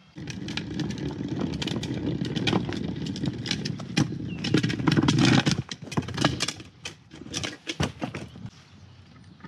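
Wheeled plastic trash bin rolled over pavement: its wheels rumble and rattle steadily, stopping about six seconds in, followed by a few scattered knocks and clatters.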